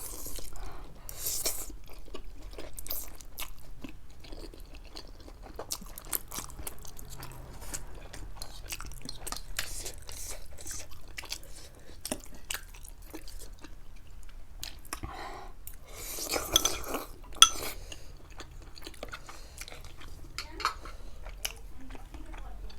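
Close-miked chewing of noodles, with many small wet clicks. There are occasional clinks of a utensil against a dish, the sharpest and loudest about three quarters of the way in.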